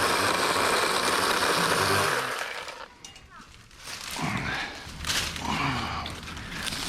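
DeWalt 20V XR 12-inch cordless electric chainsaw running through a dead branch, then winding down and stopping about two seconds in. Afterwards come softer voice sounds and a few sharp cracks.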